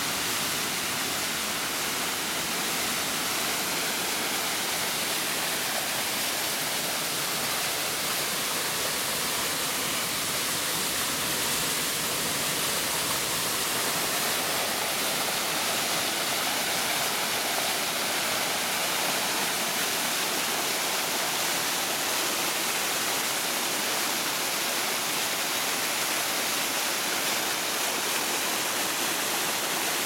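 Mountain stream cascading over boulders: a steady, unbroken rush of water.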